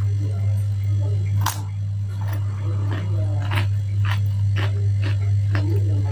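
Crunchy bites and chewing of a slice of raw cucumber, short crisp crackles about twice a second starting about a second and a half in, over a steady low hum.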